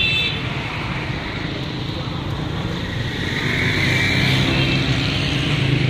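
Steady motor-vehicle traffic noise with a low engine hum that swells about halfway through as one engine draws nearer. A brief high tone sounds right at the start.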